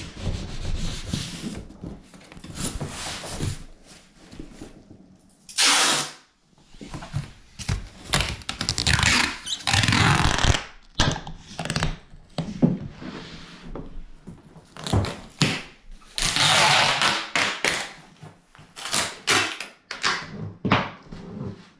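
Clear packing tape pulled off a hand-held roll in several long, loud pulls and pressed onto a cardboard box, with hands rubbing over the cardboard and short knocks of the box between pulls.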